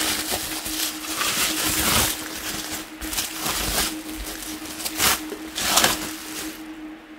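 Packing wrap rustling and crinkling in bursts as a glass piece is unwrapped by hand, loudest about five and six seconds in, over a steady low hum.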